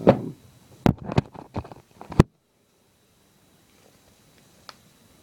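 Metal multi-tool being folded back up by hand: a handful of sharp clicks and clacks as its pliers handles and parts move and snap into place, over about two seconds.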